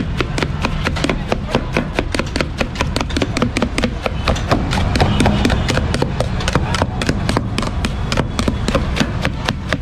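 A knife chopping watermelon flesh in a steel bowl, the blade striking the bowl in fast, even strokes, about five a second. A steady low hum runs underneath.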